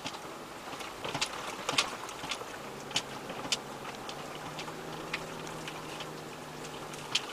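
4x4 engine running at low revs as the vehicle crawls over a rough, rocky track, with scattered sharp clicks and knocks from stones under the tyres and rattles.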